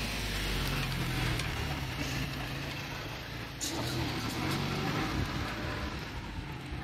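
A motor vehicle's engine running nearby, a steady low hum, with a short click about three and a half seconds in.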